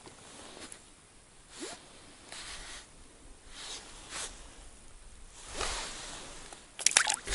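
Faint rustling and scraping of a winter jacket and hands as an angler unhooks a small fish, with a few light clicks near the end.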